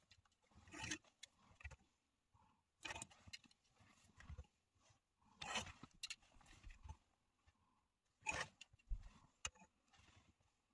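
Plastic clothes hangers being handled: short, faint clicks and rustles that come every second or two as garments are taken down and hung back up.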